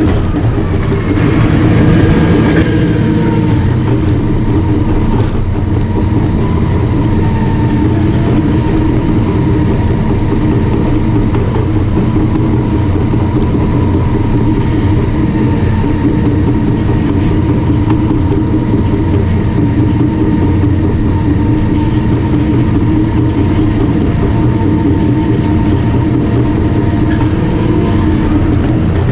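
Caterpillar D5 crawler bulldozer running steadily as it works. Its diesel engine hums low, with a thin steady whine above it, and the sound swells briefly louder about two seconds in.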